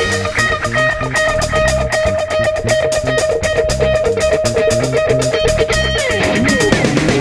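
Background music: an electric guitar track over a steady drum beat, with one long held guitar note that slides down in pitch near the end.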